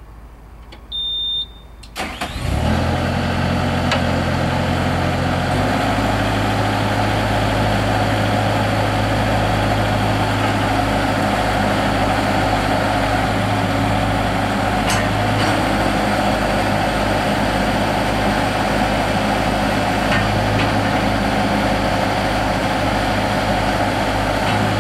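Skid steer loader engine starting about two seconds in, after a short high beep, then running steadily; its pitch steps up a few seconds after it catches and holds there.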